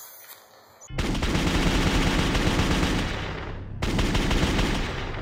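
Two long bursts of rapid automatic gunfire, used as a sound effect: the first starts suddenly about a second in and fades, and the second starts just before four seconds in and tails off.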